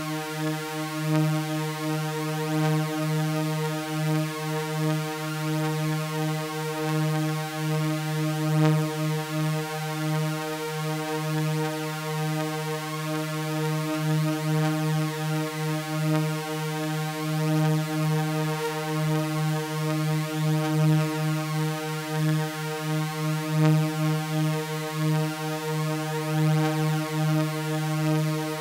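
Synthesizer drone of layered sawtooth waves, holding one steady chord with a strong low tone near 155 Hz and many overtones above it, wavering slightly in loudness.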